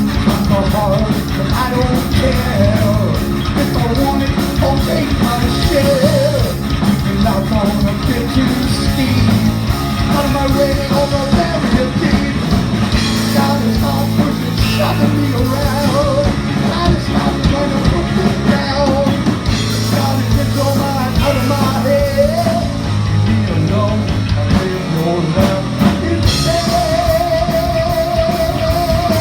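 Rock band playing live: distorted electric guitars, bass and drums with a wavering lead melody over them, ending on a long note with vibrato.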